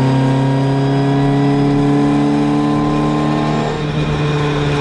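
Classic Mini Cooper S rally car's four-cylinder engine pulling steadily under way, heard from inside the cabin; its note climbs slightly, then changes with a brief dip in level about four seconds in.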